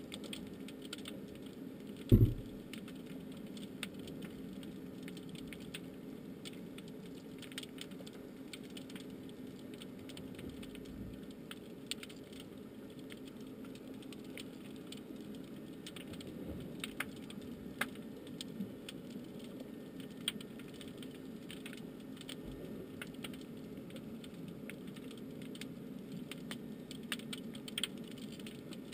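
Underwater ambience picked up by a submerged camera: a steady low hum with scattered sharp clicks and crackles, and one loud dull thump about two seconds in.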